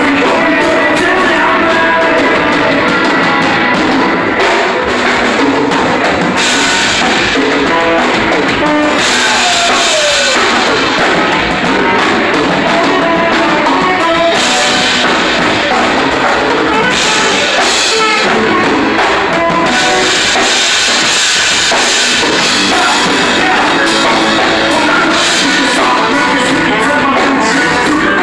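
Live rock band playing loudly: drum kit, electric guitars and keyboard, with a singer.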